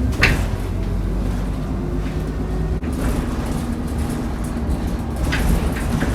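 Alexander Dennis Enviro400 double-decker bus heard from inside while on the move: its diesel engine and road noise rumble steadily, with a short sharp click or rattle about a quarter second in.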